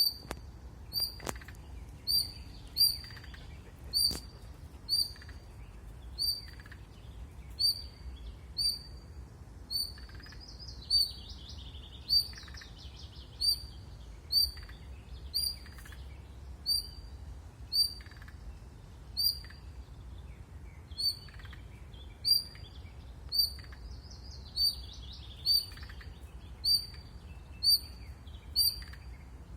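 Short, high-pitched squeaks repeating at an even pace, about every two thirds of a second. Twice there is a few-second stretch of scratchy chirping in the same high range.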